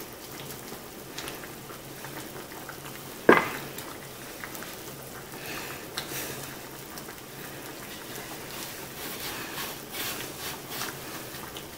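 Quiet rustling and pressing of hands folding puff pastry around a raw ground-beef patty on a plastic cutting board, with a single sharp knock about three seconds in.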